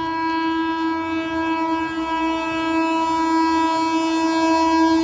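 Horn of an approaching Kolkata EMU local train, held as one long steady note that grows slightly louder.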